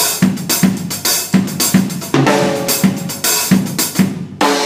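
Drum kit playing a laid-back calypso groove: a bass drum thumping on a steady pulse under snare and cymbal strokes, with accent hits added as punctuations, one about halfway through and a last one near the end that is left ringing.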